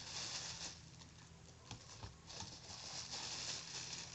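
Rustling and a few light clicks of objects, likely the card packs, being handled close to the microphone.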